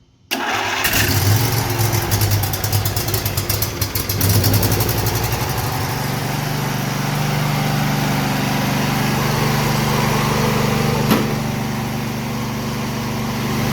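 Briggs & Stratton engine on a John Deere riding mower cranked by its electric starter with the choke on. It catches within a few seconds and settles into a steady run, with a single sharp click about eleven seconds in. The starter engages cleanly without grinding, now that its worn starter gear has been replaced.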